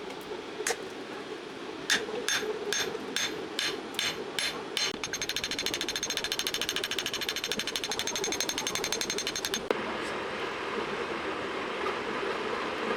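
Small hand hammer striking the spring-steel blade on the anvil. It lands a few ringing blows about two a second, then a fast rattling run of light metallic taps for about five seconds that cuts off suddenly. A steady rushing noise follows.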